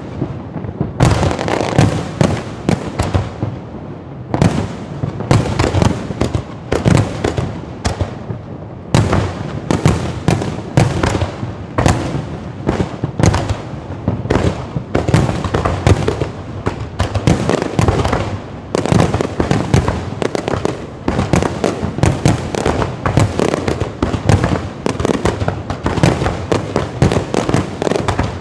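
Fireworks going off in dense volleys of rapid bangs and crackles, with only brief thinnings between volleys.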